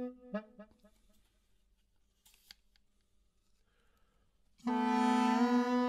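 Gourd reed pipe with a drone: a held reedy note breaks off into a few short fading notes just after the start. After about four seconds of near quiet it comes back in loud on a steady held note, and the melody pitch steps up slightly about a second later.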